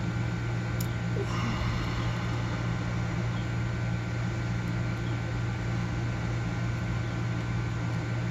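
Steady low hum of room air conditioning with a faint click about a second in, from a hook pick working the spool and serrated security pins of an all-brass Hurd padlock held in a deep false set.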